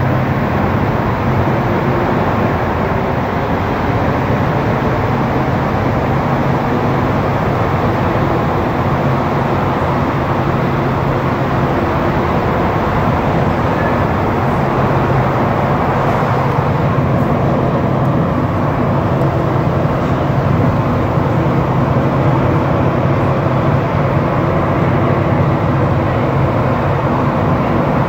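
Steady running noise of a Montréal Metro Azur rubber-tyred metro car in motion, heard from inside the car, with a constant low hum under it; it gets a little louder about two-thirds of the way through.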